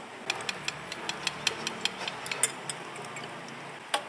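A metal fork clicking against a stainless-steel mesh strainer as it stirs through soft fruit pieces: a fast run of sharp clicks, about five a second, then one last click near the end.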